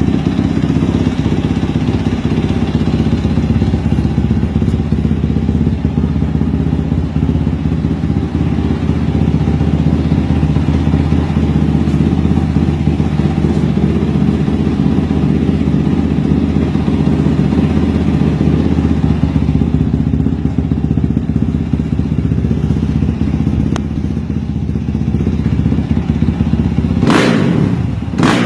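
Honda CRF150L's single-cylinder four-stroke engine running steadily at an even speed. Near the end, a couple of sharp bangs cut through it.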